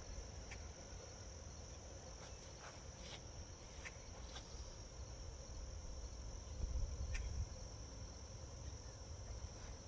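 Insects chirping in a steady, high, even drone, with low wind rumble on the microphone that swells briefly past the middle and a few faint clicks.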